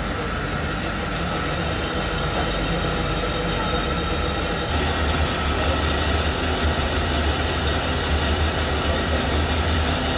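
Steady industrial machinery noise: machines running with a low hum and dense mechanical clatter, a little louder and brighter about halfway through.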